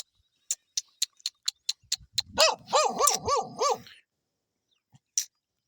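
A female dog barking at close range: a quick run of about five barks, each rising and falling in pitch, about two seconds in. Before them comes a series of sharp ticks.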